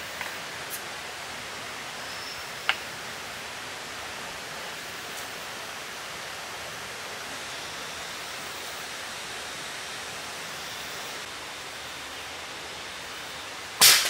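Steady hissing forest background noise, with a sharp click about two and a half seconds in. Near the end, a single loud sharp crack of the rifle being fired at a bird in the canopy.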